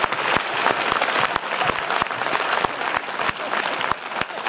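Audience applauding, the clapping slowly dying down.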